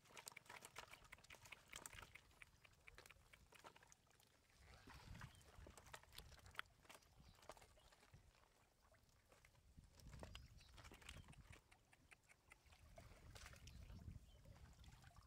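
Faint, irregular clicks, taps and rustles of live catfish squirming against a woven bamboo basket as hands rummage among them. A few low rumbles come and go.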